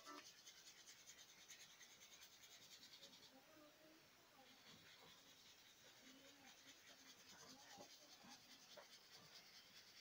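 Faint scratchy rubbing of a flat paintbrush stroking acrylic paint across paper, strongest in the first three seconds.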